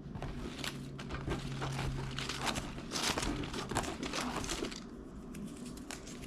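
Small paper slips rustling and crinkling as they are stirred and drawn from a hat, a quick run of crinkles that dies down near the end.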